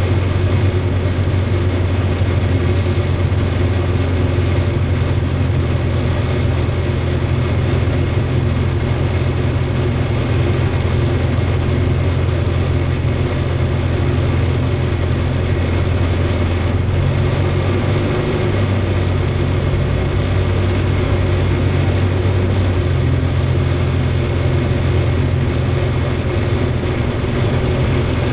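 Steady drone of the Remos GX's Rotax 912 four-cylinder engine and propeller as heard inside the cabin, shifting slightly in pitch a little past the middle, on final approach to a runway.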